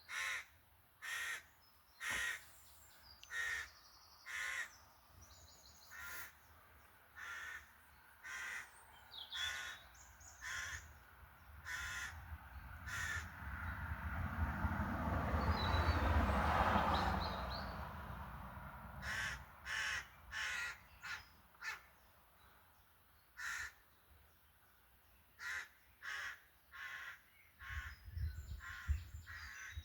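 Crows cawing in short, repeated calls, roughly one a second with a few gaps. Midway a rushing noise swells up and fades over about six seconds and is the loudest sound there.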